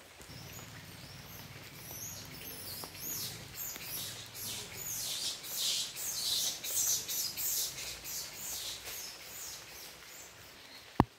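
Bird chirping: a rapid run of high, falling chirps that swells and fades, with a single sharp click near the end.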